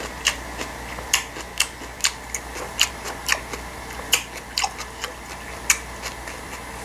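A person chewing a mouthful of noodles close to the microphone, with short, sharp wet mouth smacks coming irregularly about twice a second.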